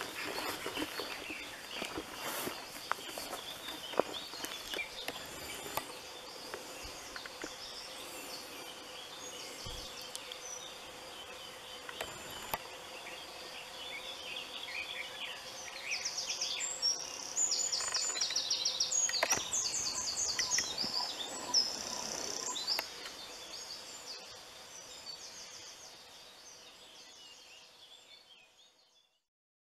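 Wild birds singing in woodland, many short chirps and trills, with a louder trilling song about halfway through. A few soft clicks early on, and the whole sound fades out near the end.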